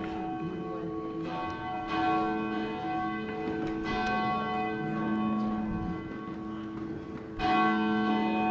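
Church bells ringing: a few struck notes, each ringing on and slowly fading into the next, with a louder strike near the end.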